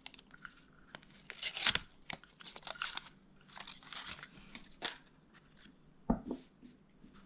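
Thick paper and card rustling and scraping as they are handled, in several short bursts, with two soft knocks about six seconds in.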